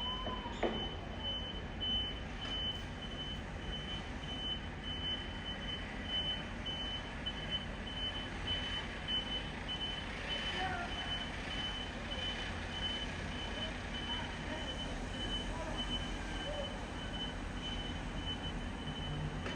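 Heavy construction machine's reversing alarm beeping steadily, a single high tone repeating at an even pace, over the low, steady running of its engine.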